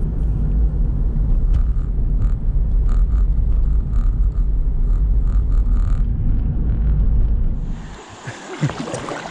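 Steady low rumble of a car driving on a town road, tyre and engine noise heard inside the cabin. About eight seconds in it cuts to the softer, even hiss of river water around a kayak.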